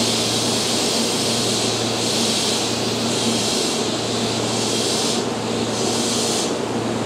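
Keihan 3000 series electric train standing at the platform: a steady low hum from the train under a loud hiss. From about two seconds in, the hiss swells and fades roughly once a second.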